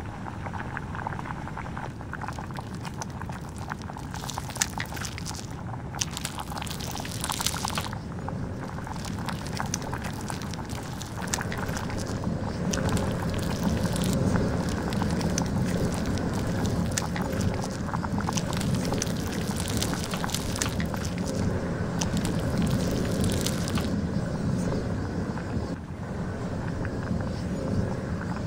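An open flame burning against a melting plastic whistle: a steady, noisy rush from the flame with stretches of fine crackling and sizzling from the bubbling plastic. The flame gets louder about twelve seconds in.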